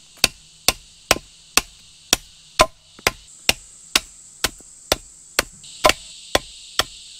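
A blade chopping into the end of a wooden hoe handle, trimming it: sharp, regular strikes about two a second, each knocking wood chips off.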